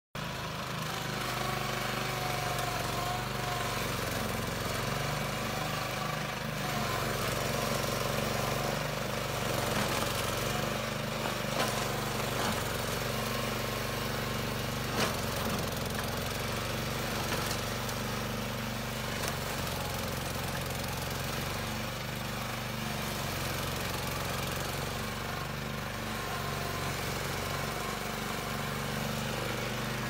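Remote-controlled four-wheeled lawn mower's small petrol engine running steadily as the mower cuts through grass and brush, with a few short sharp clicks near the middle.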